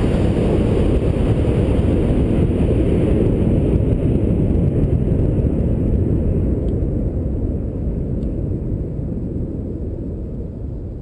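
Roar of the Armadillo Aerospace Stig-A rocket's engine just after liftoff, a dense low rumble that slowly fades as the rocket climbs away. It is heard muffled through the launch-pad camera, which is buried in blown dirt.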